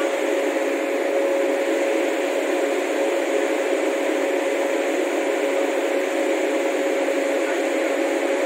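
WAP-7 electric locomotive standing with its auxiliary machinery running: a steady whirring hum with one constant mid-pitched tone that does not change.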